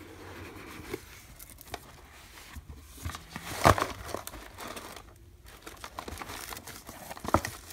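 Cardboard mailer box being opened by hand, with a sharp scrape a little past halfway as the lid comes free, then tissue paper crinkling and rustling.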